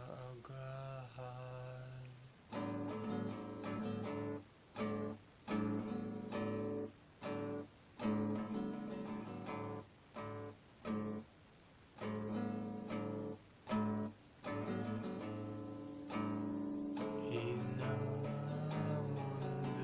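Guitar strummed in chords, in a stop-start rhythm: each chord rings briefly and is cut short, leaving short gaps. Near the end the chords ring on without breaks.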